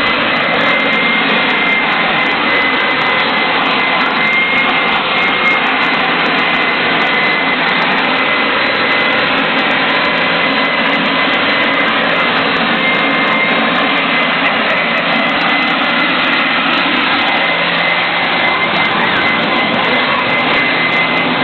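Leaf blower running steadily: a constant rush of blown air with a thin, high, even whine over it.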